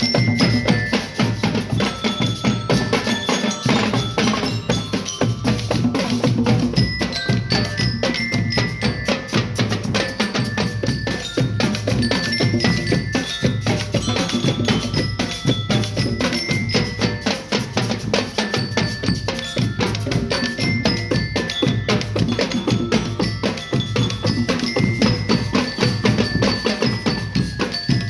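A school marching band (banda de guerra) playing: drums beat a rapid, steady rhythm under a melody of short, bright notes struck on metal bells of the glockenspiel or bell-lyre kind.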